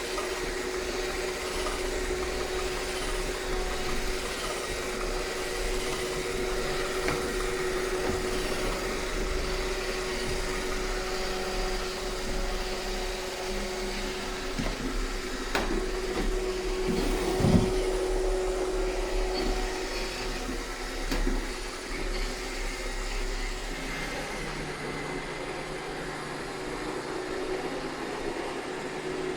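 iRobot Roomba 630 robot vacuum running steadily, its motor and brushes giving an even whir with a steady hum. A few short knocks come through, the loudest about halfway through.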